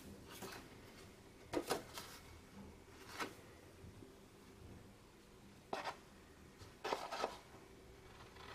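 A sheet of scrapbook paper handled on a wooden tabletop: a few brief, separate rustles and taps, a little busier near the end.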